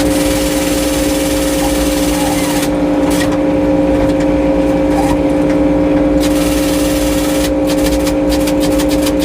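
Frick 01-C sawmill running with a steady, loud drone. Stretches of hiss come and go over it, and a run of rapid clicks follows near the end.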